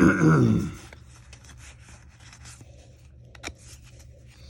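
A brief loud vocal sound at the start. Then soft rustling and scraping of a foil booster-pack wrapper and trading cards being handled, with a sharp click about three and a half seconds in.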